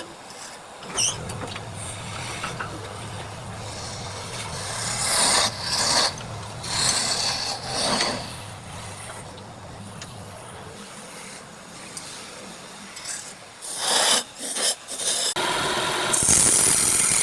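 Wood lathe running with a steady low hum while a tool scrapes against the spinning wood in repeated bursts, the loudest of them near the end.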